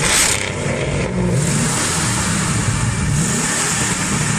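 Car engine revving hard and loud, its pitch rising and falling several times with a dense exhaust rasp.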